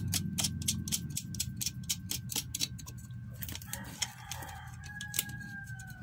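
Rapid small metallic clicks, several a second, as nuts are spun by hand onto the threaded studs of a washing machine motor; the clicking thins out after about three and a half seconds. A steady low hum runs underneath, and a faint, slightly falling tone comes in over the last two seconds.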